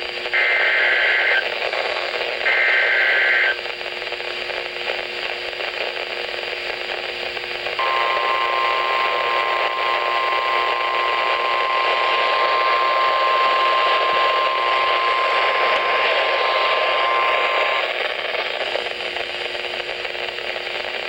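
NOAA Weather Radio Emergency Alert System signals over heavy static hiss. First come two harsh, buzzy SAME header data bursts, about a second each, which encode the severe thunderstorm warning. Then, from about eight seconds in, the steady warning alarm tone sounds for about ten seconds and cuts off. Reception is poor.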